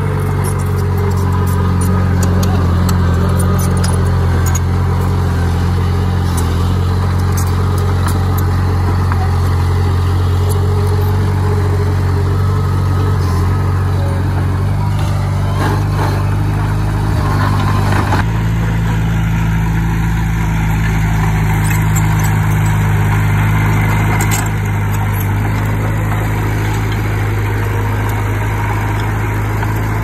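Diesel engine of heavy earthmoving machinery running steadily, a low drone with scattered light clicks. The engine note changes abruptly about eighteen seconds in.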